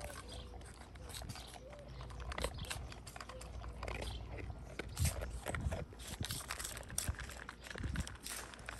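A pit bull puppy eating kibble mixed with boiled ground beef from a stainless steel bowl: irregular crunching and chewing clicks, with a louder knock about five seconds in.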